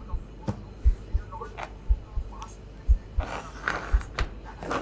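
A suspense heartbeat sound effect: a low double thump repeating about once a second, with faint handling clicks on top.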